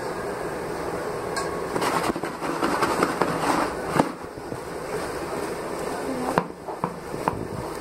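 Dhokla pieces tumbling and knocking against a plastic bowl as it is shaken to toss them with the tempering. There is a cluster of clattering knocks in the first half and a few single knocks near the end, over a steady hiss.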